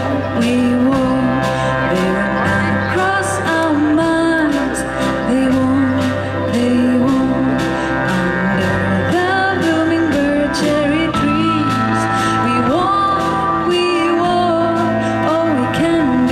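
Live band playing a song with a woman singing the lead: drum kit keeping a steady beat under bass, guitars, keyboard and cello.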